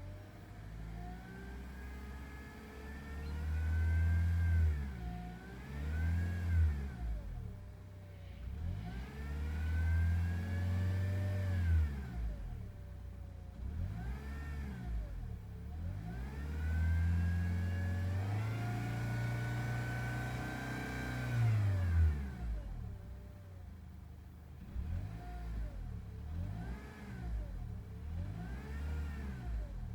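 2006 Honda Accord Euro engine revved up and down again and again, some long swells and some quick blips, with a whine rising and falling in step with the revs. This is the power steering noise that persists after a new pump and o-rings were fitted.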